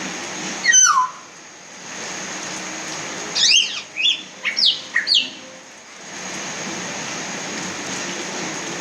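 Hill myna calling over steady rain. It gives one loud call that falls steeply in pitch about a second in, then a quick run of four or five loud downslurred whistles around the middle.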